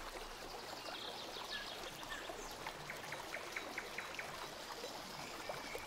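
Faint, steady background hiss (room tone), with a short run of faint ticks in the middle.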